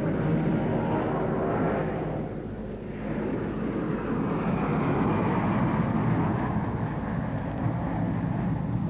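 Jet airliner engines running, a steady noise that dips about two and a half seconds in and then builds again.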